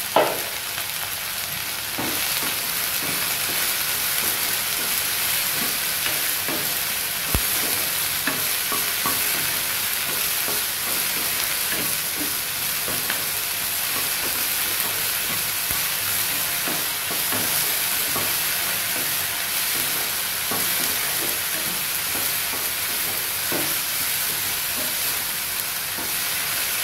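Okra pieces sizzling in oil in a nonstick kadai while a spatula stirs and scrapes through them: a steady frying hiss with many small scraping clicks, and one sharp tap just at the start. The okra is being sautéed with onion, turmeric and salt.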